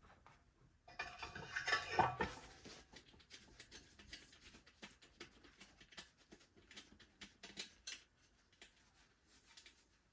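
Hands working a dirt-bike inner tube and tire on the wheel rim: a stretch of rubbing and scraping about a second in, then scattered light clicks and taps of rubber and metal being handled.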